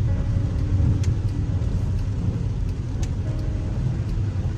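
Car running in traffic, heard from inside the cabin: a steady low engine and road rumble, with a couple of faint ticks.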